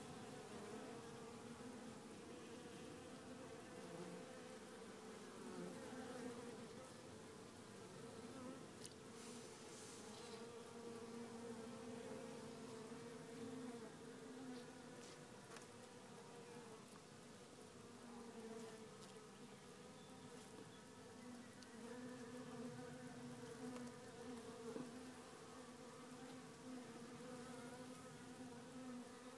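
A mass of honeybees humming steadily on the comb, a low, even buzz that wavers a little in strength. The colony is a queenless, drone-laying nucleus.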